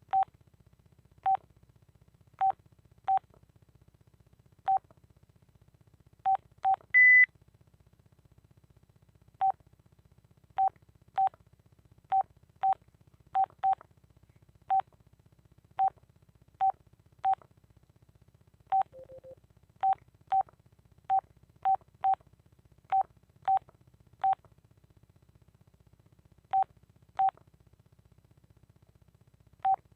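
Keypad beeps from a Telit mobile phone as its keys are pressed, each a short single-pitched beep, coming at irregular intervals. About seven seconds in there is one brief, louder, higher-pitched beep, and a little past halfway a short, quieter low warbling tone.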